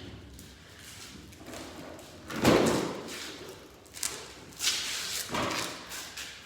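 Handling noises during a repair: one loud thump about two and a half seconds in, then shorter scraping and clattering sounds.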